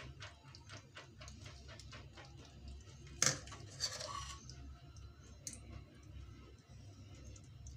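Silicone spatula working peach pulp through a mesh strainer: faint, quick ticking strokes at about three to four a second, with a sharp knock about three seconds in.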